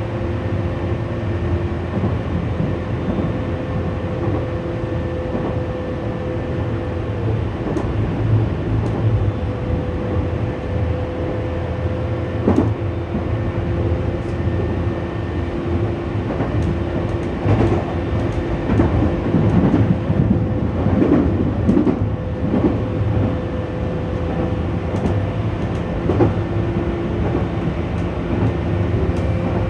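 Tokyu 8500 series electric train running along the line, heard from inside the front car: a steady rumble with a held motor hum and wheels clicking over rail joints, the clatter busier in the middle stretch.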